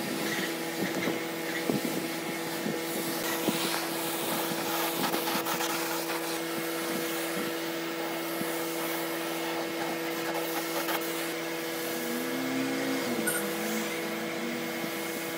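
Compressed-air spray gun hissing steadily as it sprays finish onto a wooden tabletop, over a steady low hum.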